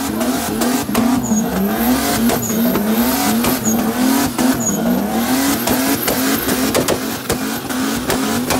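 Car engine held at high revs during a burnout, the revs surging up and falling back over and over, with sharp crackles and the hiss of spinning tyres.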